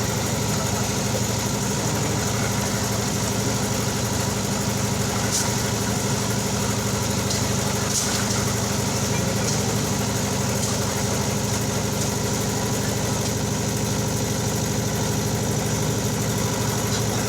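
Concrete mixer's engine running steadily at an even pitch, with a few faint clicks about five and eight seconds in.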